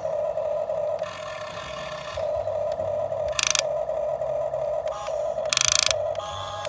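RC model excavator running, its motors giving a steady whine that cuts out and comes back as the controls are worked, with two short harsh scraping bursts partway through.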